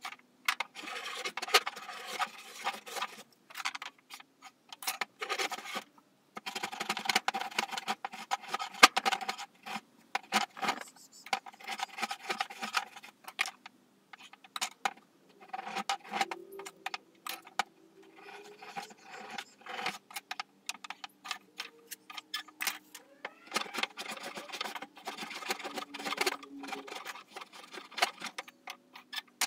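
Hand tool shaving and rasping along the edge of a wooden boat frame in bursts of strokes with pauses between, cutting a bevel, with scattered light knocks of tools on the bench.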